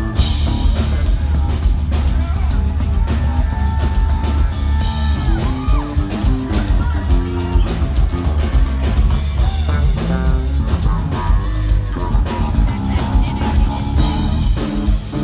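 Live rock band jam heard from the audience: electric bass guitars playing a heavy, loud groove over a drum kit.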